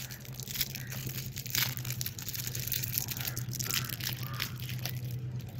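Thin plastic wrapper crinkling and crackling irregularly as small clear packaging is handled and torn open by hand, over a steady low hum.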